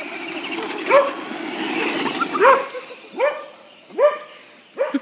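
Goldendoodle barking in short single barks, about five in all, each rising then falling in pitch. A rushing noise runs under the first barks and fades out about halfway through.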